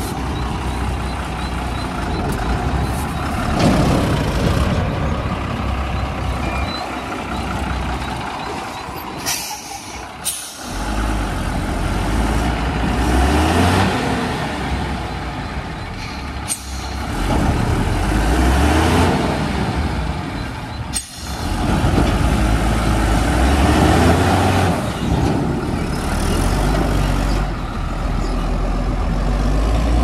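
Tata tipper truck's diesel engine working hard as the truck drives over a rough dirt track, its pitch rising several times as it is revved up. A few short sharp sounds stand out above the engine.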